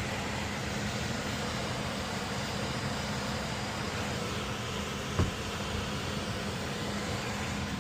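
Steady whooshing noise of a running air-conditioning air handler, with a faint steady hum and a single short knock about five seconds in.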